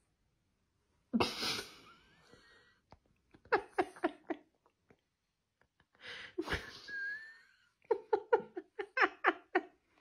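A person laughing off-camera: a sharp burst of breath about a second in and again past halfway, each followed by a quick run of short 'ha' pulses.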